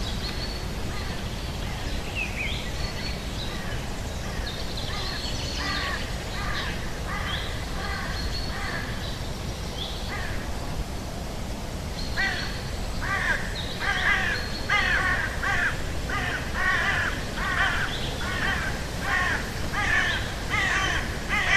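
Bird calls: scattered chirps and short whistles at first, then from about halfway through a loud run of repeated calls, roughly two a second.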